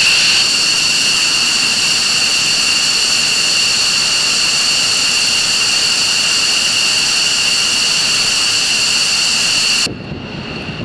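F-15E Strike Eagle's jet engines running steadily on the ground with a loud, high-pitched whine. The sound cuts off abruptly near the end, leaving a much quieter rumble.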